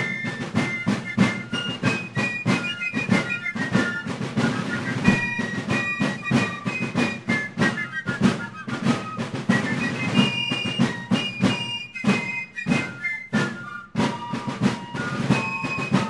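Fifes and drums playing a Revolutionary War-era march: a high fife melody over steady drumbeats.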